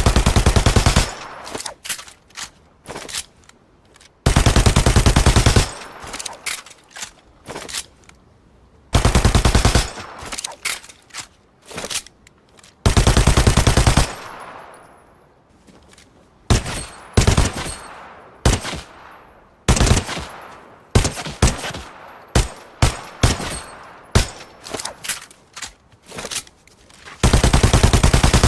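Machine pistol firing on full automatic. Five loud bursts of about a second each are separated by short bursts and single shots, which come thick and fast in the second half.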